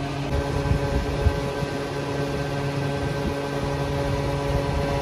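Steady mechanical hum of a petrol pump dispensing fuel into a car, several fixed tones over a low, unsteady rumble.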